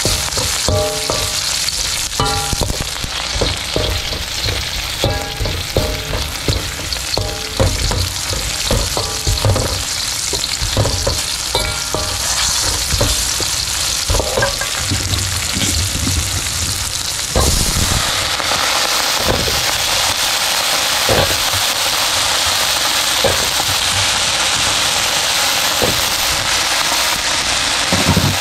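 Eggplant stir-frying in hot oil, a continuous sizzle with a spatula knocking and scraping against the pan in frequent short ringing clanks. About seventeen seconds in, the sizzle turns louder and steadier and the clanks become sparser.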